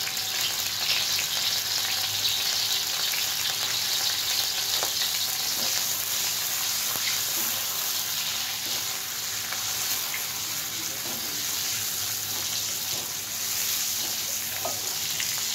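Dried anchovies sizzling steadily in hot oil in a metal wok, fried to half-done, with a plastic spatula scraping and stirring them against the pan now and then.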